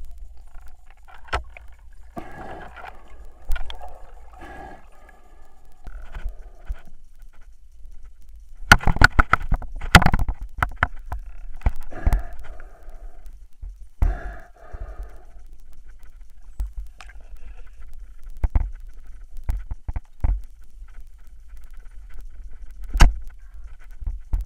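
Muffled underwater sound of a spearfisher moving through river snags: irregular knocks and clicks of gear against wood and the camera housing, over a low steady rumble. The knocks come thickest about nine to ten seconds in.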